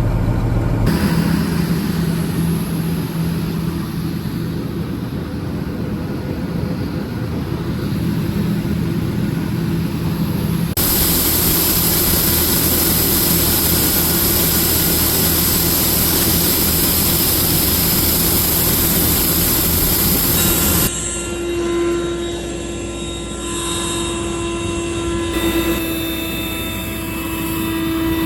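Heavy harvest machinery running steadily with no speech, with a steady engine hum throughout. The sound changes abruptly a few times: about a third of the way in a loud hiss comes over the hum, and near two-thirds it drops back to a hum with a few steady whining tones.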